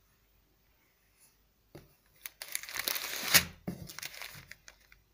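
Clear plastic bag of fennel seeds crinkling as a hand picks it up and turns it over. It starts about two seconds in, is loudest a little past the middle, and trails off into a few lighter rustles near the end.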